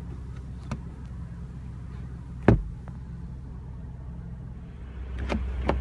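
A car sun visor snaps shut against the headliner with one sharp click about two and a half seconds in, over a steady low hum in the car's cabin. A few lighter clicks follow near the end.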